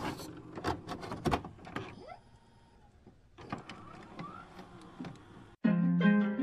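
Sound effects under an animated title: a run of sharp clicks and short rising sweeps, quietest in the middle. Plucked-string music starts suddenly about five and a half seconds in.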